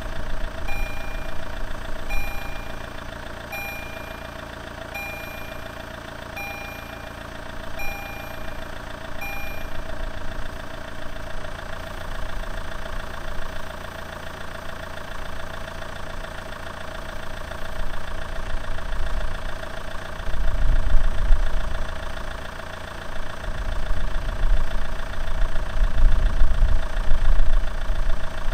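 Level-crossing warning bell ringing about once a second, stopping about ten seconds in. A steady engine hum runs underneath, and a heavier low rumble builds in the last third, loudest near the end.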